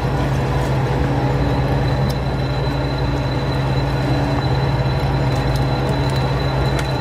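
Fishing boat's machinery running with a steady low drone and a faint high whine, while a giant tuna is hauled up alongside on a line. A few light clicks sound over it.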